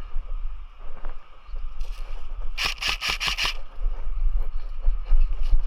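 Low wind and handling rumble on an action camera worn during play, with gear rubbing against it. About halfway through comes a quick string of about six sharp snaps, under a second long.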